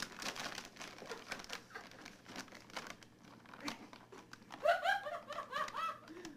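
A crinkly snack bag stuck over a dog's head, crackling and rustling as the dog moves about with it. A brief high-pitched voice sounds near the end.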